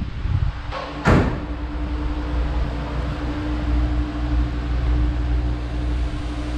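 A single sharp bang about a second in, then a steady low mechanical hum with one held tone.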